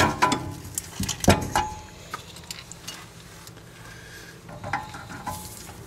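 Steel tools clinking and knocking on a rear brake caliper as a wrench is set on the bleeder screw to work it loose. A few sharp clinks with a short metallic ring in the first second and a half, then quieter handling with small clicks near the end.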